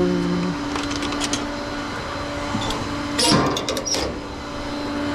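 Flatbed tow truck running with its hydraulics engaged: a steady hum throughout, and a short hydraulic whine that stops about half a second in. A few light clicks follow, then a burst of metal clanks and rattles around the middle, as of chains or hooks being handled.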